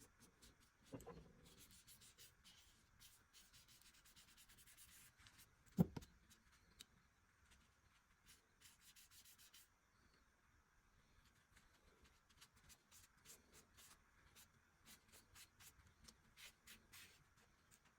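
Quiet scratchy strokes of hand rubbing or sanding on the sickle's handle. There is a soft knock about a second in and a sharper, louder knock about six seconds in. After a lull around ten seconds in, shorter, quicker strokes follow.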